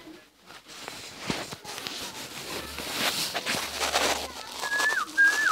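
Rustling and light knocks, then near the end three short whistled notes, each held briefly and then dropping in pitch.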